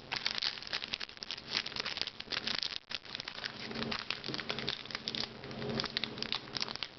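Crinkling and rustling as Pokémon booster pack wrappers and trading cards are handled, a dense run of small irregular crackles.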